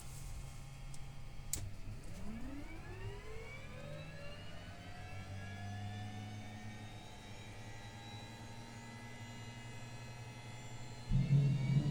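Bell 505 JetRanger X helicopter's Safran Arrius 2R turboshaft starting, heard from inside the cabin. A click, then a whine that rises in pitch and levels off as the turbine spools up, with a sudden, louder low hum coming in near the end.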